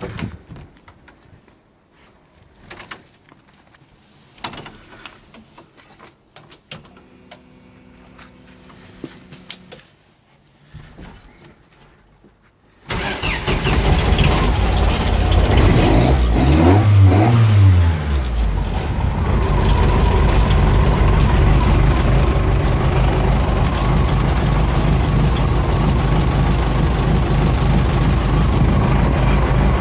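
Race car engine started up after an oil change. It fires suddenly about 13 seconds in, is revved up and back down once, then settles into a steady, loud idle. Before it starts there are only quiet clicks and a brief hum.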